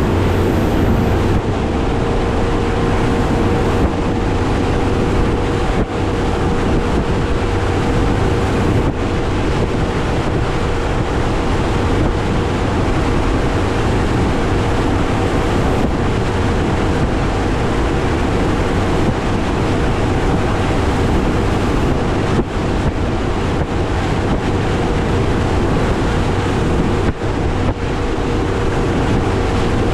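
Mercury Pro XS 200 outboard running at a steady speed, its steady drone mixed with heavy wind on the microphone and water rushing past the hull, with a few brief dips in loudness.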